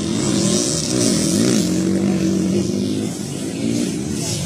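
Motocross dirt bike engines revving hard, the pitch rising and falling several times in the first second and a half as the throttle is worked, then holding a steadier note.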